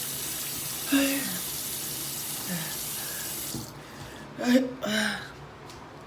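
A person's short, voiced, gasping hiccups as they struggle to catch their breath at the end of a hiccup-induced choking spasm: faint ones early, then two louder ones about four and a half and five seconds in. A water tap runs with a steady hiss under the first part and cuts off about three and a half seconds in.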